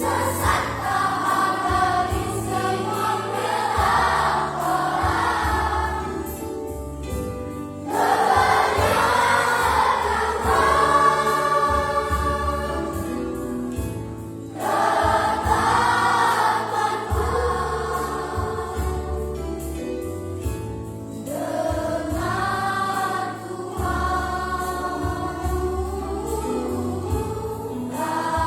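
A large choir singing a gospel song with instrumental accompaniment, in phrases several seconds long that start afresh about every six to seven seconds.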